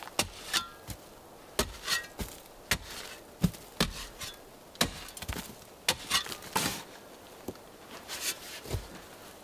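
Steel shovel blade striking and cutting into compacted forest soil while a pit is dug: irregular sharp chops and thuds about one or two a second, some with a brief metallic clink.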